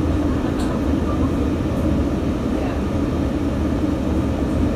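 Steady low rumble of a passenger train running, heard from inside the carriage, with a couple of faint ticks.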